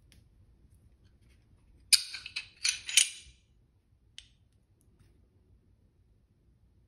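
Metal clicks and scrapes from a Glock 19 pistol's slide, barrel and recoil spring assembly being handled while it is field-stripped. A quick run of sharp clicks lasts just over a second starting about two seconds in, followed by one lighter click.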